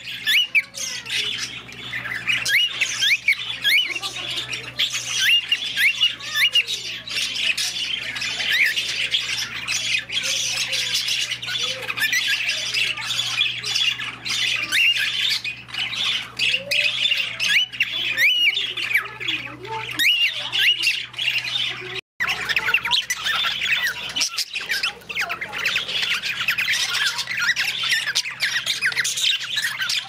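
Cockatiels and other cage birds chattering and squawking together: a dense, continuous stream of short, high squeaks and whistles, over a steady low hum.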